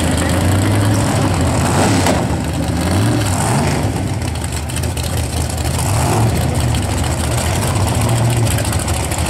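Large drag-racing car engine idling with a lumpy, uneven rumble, with a couple of brief rises in pitch as the throttle is blipped.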